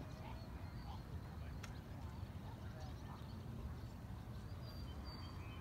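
Outdoor ambience: scattered bird chirps over a low steady rumble of wind or distant traffic, with one sharp click about a second and a half in.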